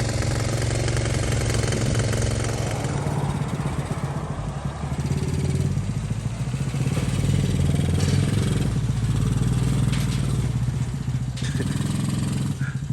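Small engine of a repaired riding machine running steadily, its pitch wavering slightly as it is driven.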